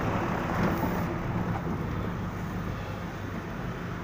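Steady hum of a car's engine and road noise, heard from inside the cabin.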